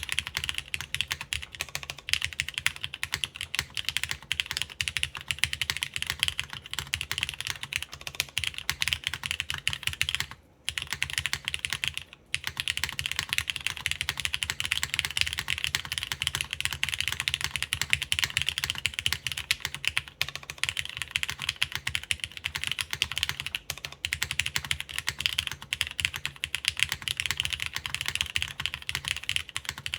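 Continuous typing on a Plywrks Spyder TKL mechanical keyboard, o-ring mounted with no foam, fitted with lubed Cherry MX Nixie linear switches (Black clear tops, Krytox 205g0, films) under GMK keycaps on an aluminium half plate. The keystrokes come in a dense, steady stream, broken by two brief pauses about ten and twelve seconds in.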